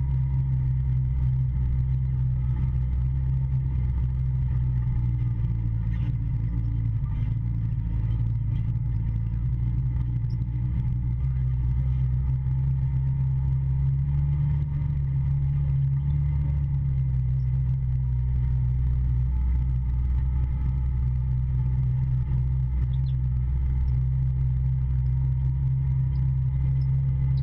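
Polaris Ranger side-by-side's engine running under way at a fairly steady speed: a constant low drone that shifts only slightly in pitch.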